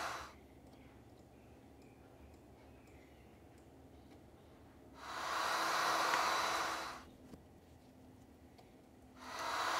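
Heat gun blowing hot air onto vinyl wrap film, a steady rushing hiss. It cuts off just after the start, comes back about five seconds in for two seconds, and returns near the end, with only a faint room hum in between.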